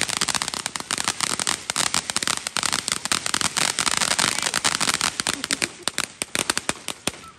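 Firecrackers going off in a long, rapid run of sharp pops, dense for most of the stretch and thinning out near the end.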